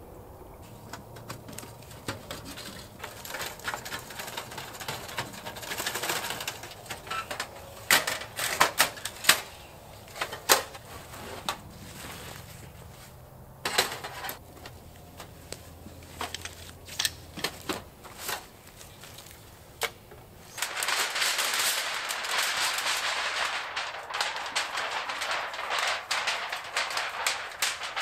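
Camping gear being handled and packed by hand: a run of sharp clicks and knocks, then a steady rustle of fabric and bags from about twenty seconds in.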